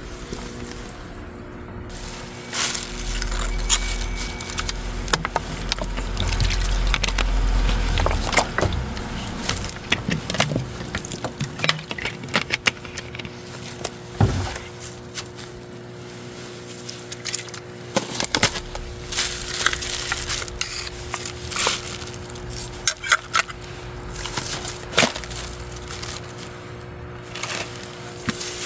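Empty tin cat-food cans clinking and plastic and foil crinkling as the cans, a wet-food pouch and a plastic glove are picked up, with many irregular clicks and handling knocks.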